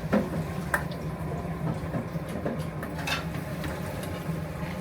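Cutlery clinking against dishes during a meal: a few light, sharp clinks over a steady low hum of room noise.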